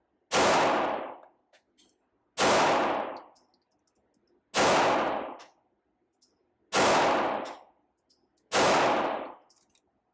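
Five single shots from a 9mm Laugo Arms Alien Creator pistol, about two seconds apart, each with a ringing tail off the indoor range. This is slow, aimed fire to zero the sights.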